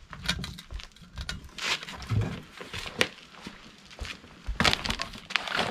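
Footsteps on concrete and a cardboard box being handled, its flaps pulled open: scattered light knocks and rustles, the busiest stretch near the end.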